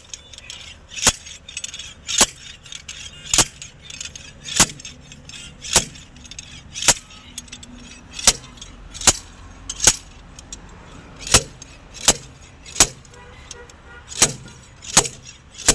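About fifteen sharp metal-on-metal knocks, roughly one a second, from a slide-hammer injector puller working a seized diesel injector out of a Hyundai i20's cylinder head.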